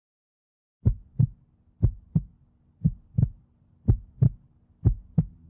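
Heartbeat sound effect: five slow lub-dub double thumps, about one a second, starting a second in.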